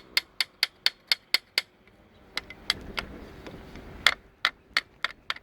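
Rapid sharp clicking, about four clicks a second for a second and a half, then a few scattered clicks, from the Johnson V4 115 hp outboard's electric starter as it bobbles without cranking the engine over.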